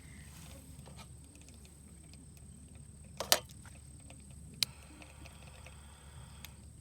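A few sharp clicks or taps, the loudest about halfway through and another a second later, over a faint low steady rumble.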